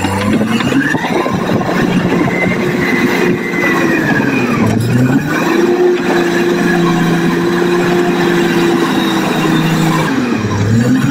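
Caterpillar crawler bulldozer's diesel engine running under load, its pitch dropping briefly and picking up again three times: near the start, about four and a half seconds in, and near the end, as the dozer shuttles forward and back pushing soil.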